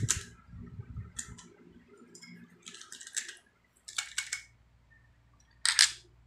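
Hand pop-rivet gun, freshly fitted with a new return spring, being worked: its handles squeezed and released, giving a series of short metallic clicks, the sharpest near the end.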